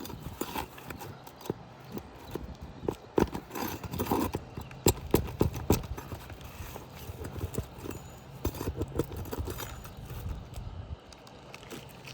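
Irregular knocks, clicks and scrapes from a hand tool working roofing nails out of an asphalt shingle, loudest about halfway through, over a steady low hum.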